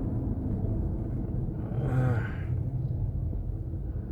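GMC Denali truck on the move, heard from inside the cab: a steady low drivetrain hum and road rumble, which the owner suspects comes from the differential, transmission or transfer case. A short vocal sound about two seconds in.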